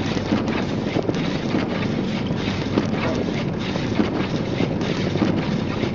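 Steady road noise inside a front-wheel-drive car driving on snow-covered streets: tyres running over snow and slush, with the engine running underneath.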